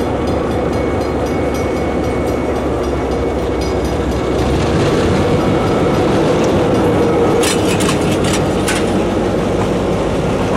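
Diesel switcher locomotives (an SW14 and an SW1200) rolling slowly past close by, their engines running steadily and growing a little louder about halfway through as the units come alongside. A few sharp metallic clicks come near the end.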